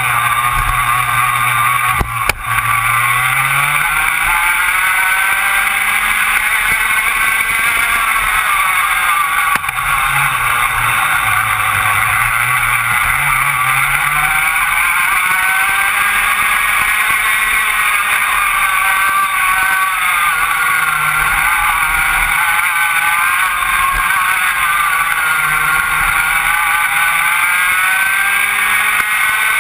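Rotax Max 125cc two-stroke kart engine heard onboard, revving up and down lap after lap: its pitch climbs on the straights and drops off into the corners. There is a sharp knock about two seconds in.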